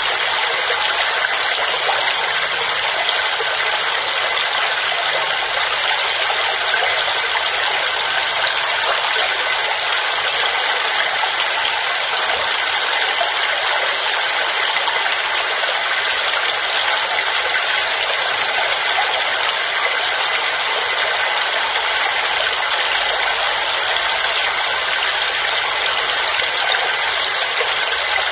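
Waterfall: a steady, unbroken rush of falling water, mostly hiss with little deep rumble.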